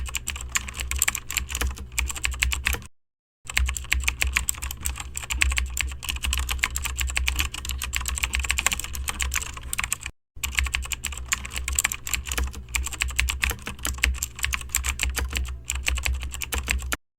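Rapid typing on a keyboard, dense fast key clicks over a low steady hum. The sound cuts out briefly twice, about three and ten seconds in.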